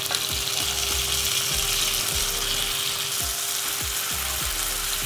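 Marinated chicken pieces going into hot oil with fried green chillies, garlic and curry leaves, sizzling loudly. The sizzle jumps up as the chicken goes in and stays strong.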